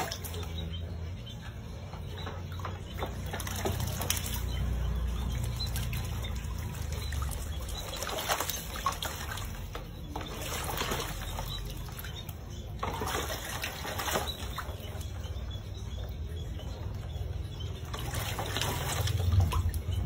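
An owl bathing in a metal basin of water: splashing and beating its wings in the water in several bouts, with quieter moments between them, over a steady low rumble.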